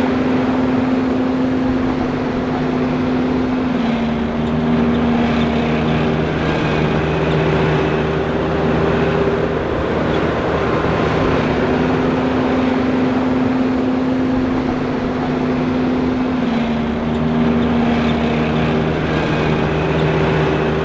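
John Deere 5820 self-propelled forage harvester running steadily. Its hum carries several steady tones that drop slightly in pitch a few seconds in, then return about eleven seconds in and drop again.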